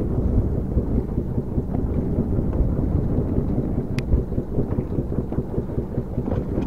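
Wind buffeting the camera's microphone in a steady low rumble, with one sharp click or knock about four seconds in.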